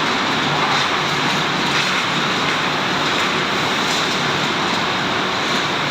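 Biesse Rover C9.50 CNC machining centre running: a loud, steady, even rush of machine noise that holds level throughout.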